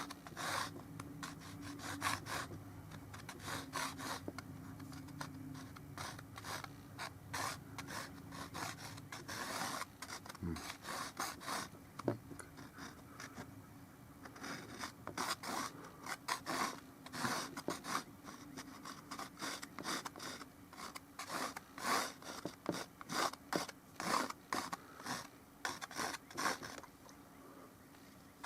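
Brush applying oil paint to the painting surface in quick, irregular scratchy strokes that come in clusters.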